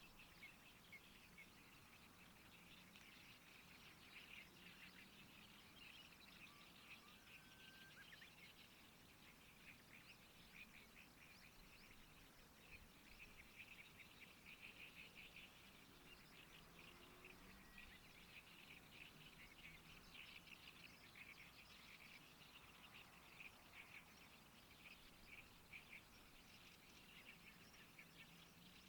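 Faint, steady chorus of rapid, rasping chirps from many small animals, frogs or birds in the reeds, with one brief whistled note about seven seconds in.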